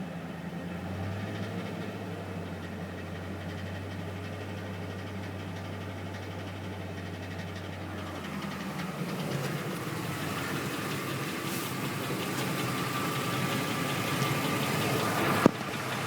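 Ford engine running at idle with a knock from a bent flexplate; the sound grows louder over the second half, with a sharp click near the end.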